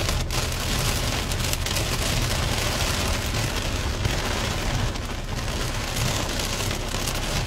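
Rain hitting a car's windscreen and body, heard from inside the cabin, as a dense steady hiss with a low rumble underneath.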